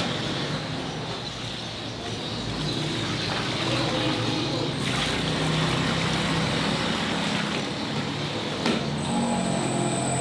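Busy street noise with motor vehicles running past, a steady mixed hum. There is a single sharp knock near the end, and a thin high whine starts just before the end.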